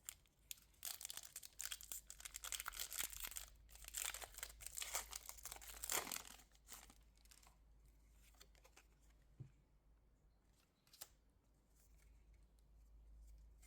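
Foil Pokémon trading-card booster pack wrapper being torn open and crinkled, a dense run of rustling and tearing for about five seconds, followed by a few faint clicks of handling.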